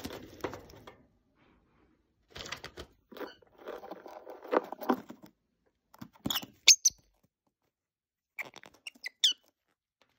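Lovebirds moving on a paper-strewn cage floor: rustling and light scratching in the first half, then short, sharp, high chirps, one cluster past the middle and another near the end.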